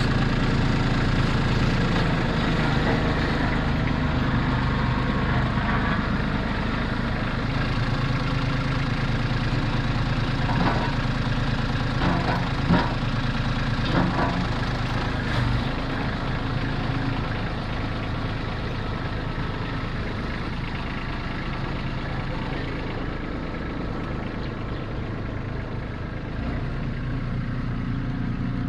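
Diesel tractor engine running steadily, with a few short clanks near the middle.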